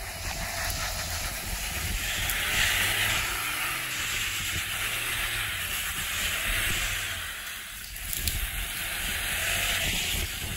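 Suzuki Jimny's 1.5-litre four-cylinder petrol engine pulling under load as the 4x4 crawls up a steep, loose sandy slope. A loud hiss swells twice, a couple of seconds in and again near the end.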